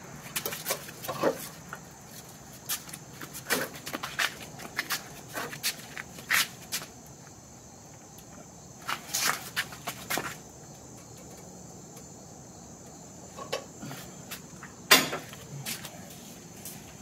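Adjustable twisting wrench clicking and clanking against a red-hot steel bar clamped in a steel bench vise as the bar is twisted, in irregular clusters of sharp metal knocks, the loudest a single clank about fifteen seconds in.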